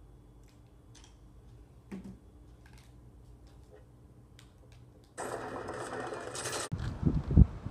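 Faint room tone with a few light clicks and a soft thump, then a sudden loud, steady mechanical rattling buzz for about a second and a half that cuts off abruptly. Near the end, wind buffets the microphone.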